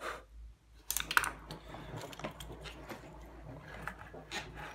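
Light clicks and clatter of a circuit board being handled and moved on a wooden workbench, with a sharp cluster of clicks about a second in and scattered lighter ones after.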